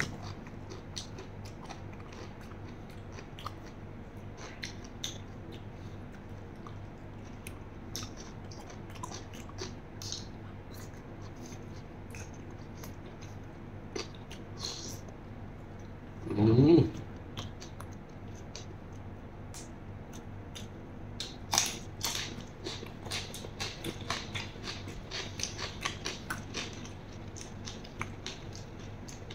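Close-up wet chewing and smacking of a mouthful of raw beef larb in fresh blood, with a short voiced hum from the eater about halfway through. Crisper bites and chewing of fresh cucumber follow in the last third.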